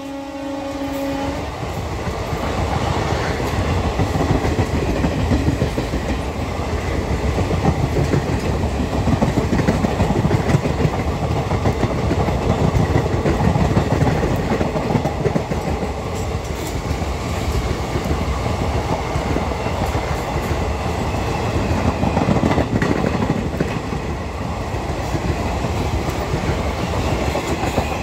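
Coaches of an express passenger train passing at speed: a steady rumble and rush of wheels on the rails that carries on until the last van goes by. The locomotive's horn dies away in the first second or so.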